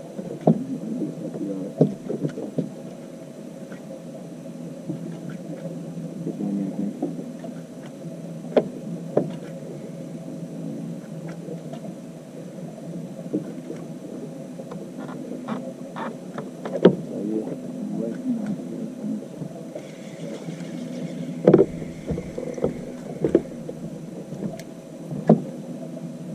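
Ambient noise aboard a small fishing boat on open water: a steady low rush of wind and water with scattered knocks and taps against the boat. A faint high tone sounds for a few seconds near the end.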